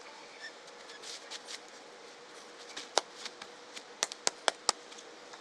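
A few sharp clicks and taps over faint rustling: a single click about three seconds in, then four quick clicks about a quarter-second apart near the end.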